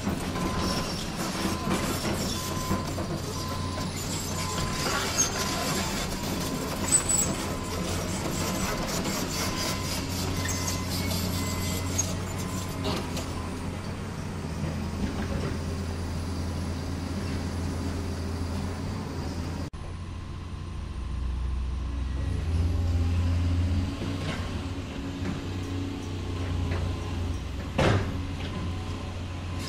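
Radio-controlled model excavator working as it digs, giving a steady mechanical running sound of motors and gears, with a deeper rumble in the last third.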